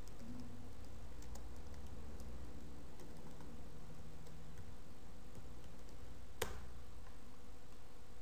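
Computer keyboard typing: a few faint key clicks, then one sharper click about six seconds in, over a steady low hum.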